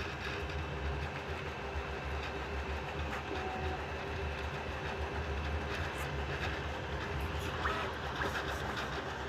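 3D printer running: a steady low mechanical hum with a few steady higher whining tones and faint scattered clicks.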